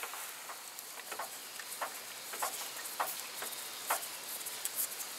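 Light, irregular clicks, about one or two a second, as a gloved hand turns the new serpentine belt tensioner's mounting bolt into its thread.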